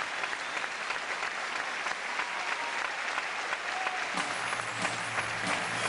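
Audience clapping in a theatre. About four seconds in, low bass notes of music start up under the applause.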